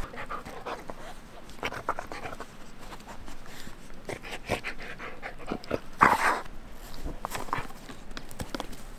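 A dog panting as it plays and runs about, with many short scuffs and clicks of its movement and a louder burst about six seconds in.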